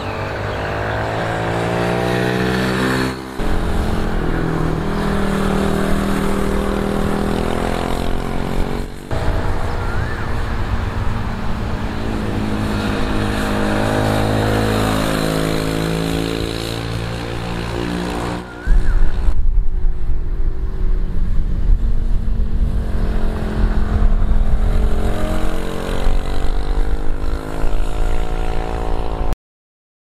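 Sport motorcycle engine on a circuit, its pitch climbing and falling again and again as it revs out, shifts and slows for corners. Heavy low wind buffeting joins in the second half, and the sound cuts off suddenly near the end.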